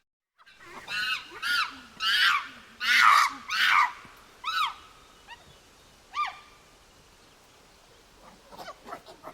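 Monkey calling: a quick run of loud, high calls that each rise and fall in pitch, then a few fainter single calls spaced apart, and rapid chattering starting near the end.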